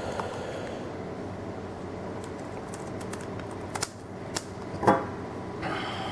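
Steady low hum with a few short clicks and crinkles in the second half, from a foil booster pack and trading cards being handled.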